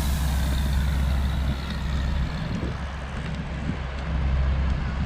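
Wind buffeting a camera's built-in microphone, a steady low rumble.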